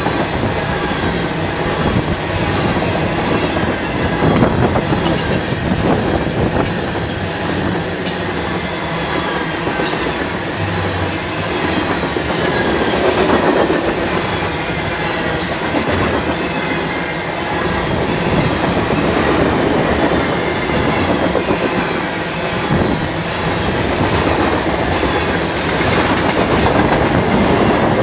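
Covered grain hopper cars of a freight train rolling past close by: a steady rumble of steel wheels on rail with clickety-clack over the rail joints, and a few brief high wheel squeals in the first half.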